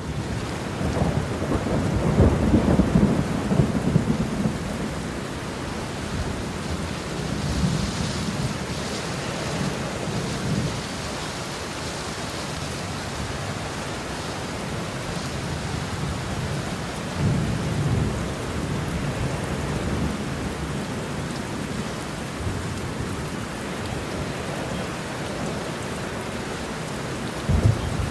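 Steady rain with thunder rumbling over it, the heaviest rumbles a couple of seconds in, again about two thirds of the way through, and near the end.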